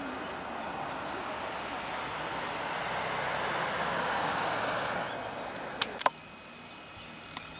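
A car driving past on the road, its tyre and engine noise swelling to a peak about four seconds in and then fading. Two sharp clicks follow about six seconds in.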